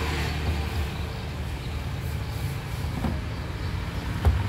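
Light handling of a cardboard smartphone box and its inner tray, with a few soft clicks and one sharper click near the end, over a steady low background rumble.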